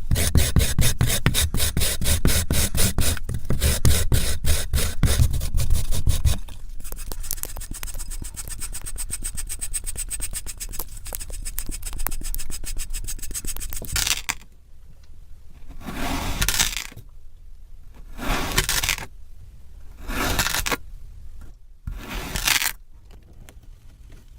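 Kinetic sand being scraped. The first six seconds are loud, rapid rasping strokes; then comes a softer, continuous scrape; then four separate scrapes of about a second each, spaced a second or so apart.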